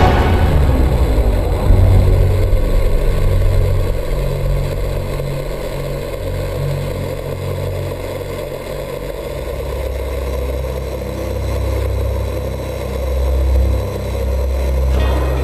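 Electric RC truck driving over rough ground, heard from a camera mounted on it: a low rumble from the drivetrain and chassis that swells and fades as the truck speeds up and slows down.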